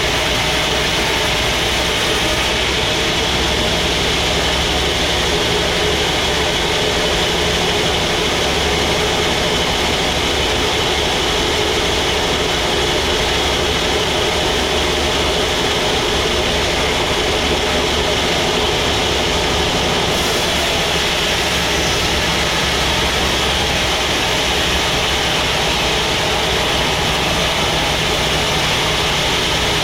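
Sawmill machinery running steadily, a constant, loud engine-like drone that stays even throughout.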